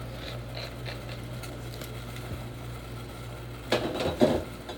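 A steady low hum, with a few sharp clatters of kitchen utensils and dishes close together near the end.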